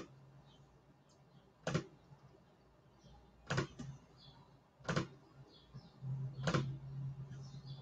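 Five sharp clicks, about one and a half seconds apart, over a faint low hum that gets louder near the end.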